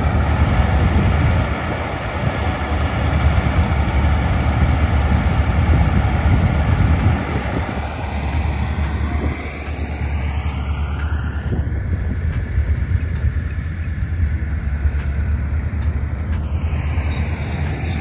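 Preet 987 combine harvester running steadily as it works the field, its sound thinning a little after about eight seconds as it draws away.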